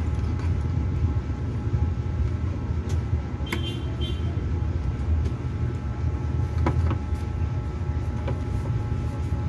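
Steady low rumble with a few light clicks and taps, around three and a half and seven seconds in.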